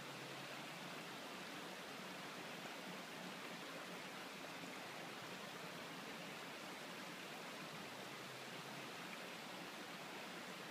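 Steady, even rushing hiss with no distinct events, unchanged throughout.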